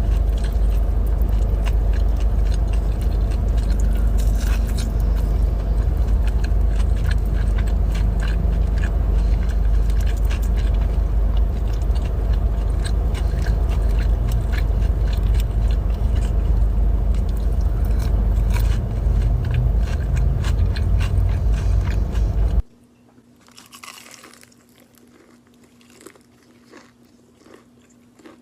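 Close-miked chewing and biting of fast food, small crunches and mouth clicks over a loud, steady low rumble. Near the end the rumble cuts off suddenly and the chewing goes on quieter, over a faint steady hum.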